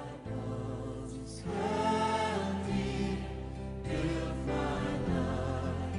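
A choir singing gospel music in long held chords that change every second or so, growing louder about a second and a half in.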